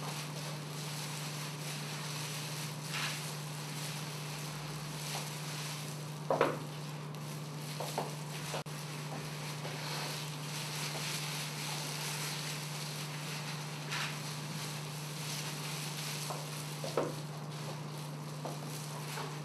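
A steady low hum with background hiss, broken by a few brief, soft handling noises, the loudest about six seconds in.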